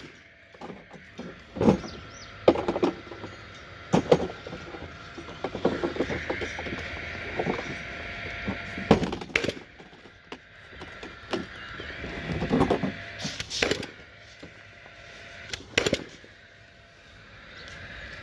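Nail gun firing nails into a timber bearer, a sharp shot every few seconds, about seven in all at irregular spacing.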